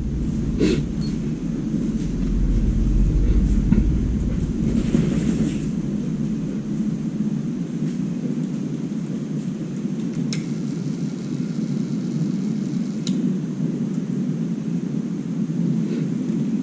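A steady low rumbling drone with a few faint clicks, a little louder a few seconds in.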